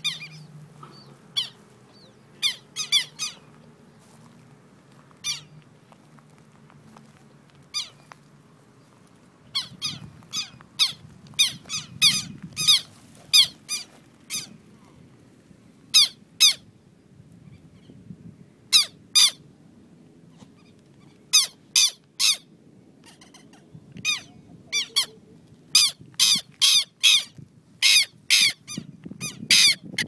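Southern lapwings (quero-quero) giving sharp, high, repeated calls in clusters. The calls are sparse at first and come thicker and louder in the second half. They are the adults' alarm calls over their chick crouched in the grass.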